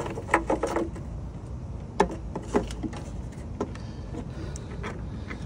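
Scattered small clicks and taps from hands working wires and tools at an open taillight housing, the sharpest about two seconds in, over a steady low background rumble.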